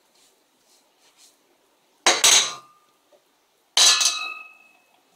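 Two stones dropped one after the other into an empty stainless steel saucepan, each landing with a loud clank. The pan rings on briefly after each, longer after the second.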